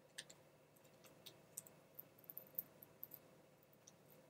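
Faint, scattered light clicks and ticks of a laptop's display cable connector and screen panel being handled as the connector is eased out of the back of the screen.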